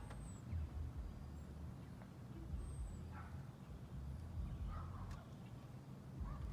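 A few faint bird calls, including two short high chirps, over a steady low rumble.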